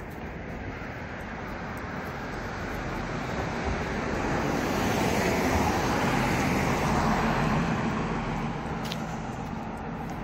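Street traffic with a van passing close by: tyre and engine noise swells over a few seconds in the middle, then fades away.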